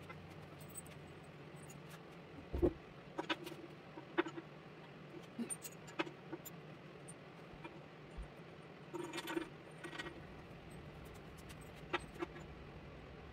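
Scattered light metallic clicks and clinks of small metal parts being handled, some in quick clusters, over a steady low hum.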